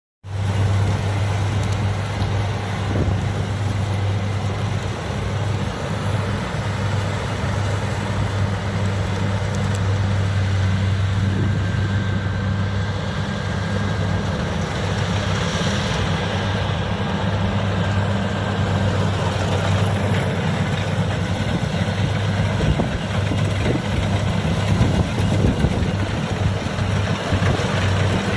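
Diesel engine of rice harvesting machinery running steadily, with a strong, even low hum.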